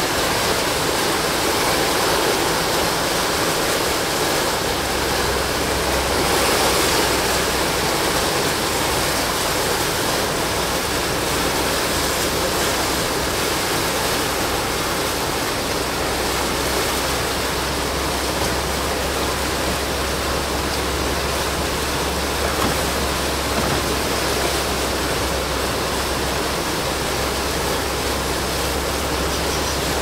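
Floodwater rushing over and around a submerged low-water bridge, a steady loud wash heard from inside the cab of a Land Rover Defender 110 as it drives across. A low steady engine hum comes in under the water about four seconds in.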